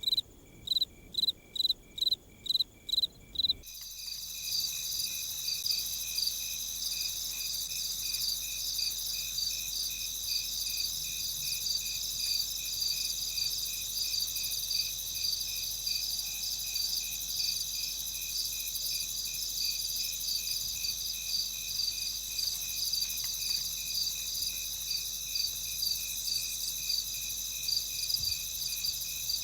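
Night insects: a lone cricket chirping in an even rhythm, about two to three chirps a second. About four seconds in it switches abruptly to a dense chorus of crickets, a continuous high trill with regular chirps running through it.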